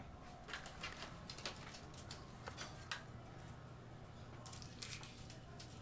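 Faint, irregular clicks and light rustling of small items being handled on a dresser, over a low steady hum.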